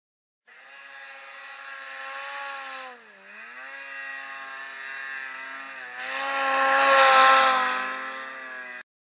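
Polaris 800 RMK snowmobile's two-stroke engine revving in deep powder. The pitch dips briefly about three seconds in and again around six seconds. Near the end it grows loudest, with a rushing hiss, as the sled comes close, then the sound cuts off suddenly.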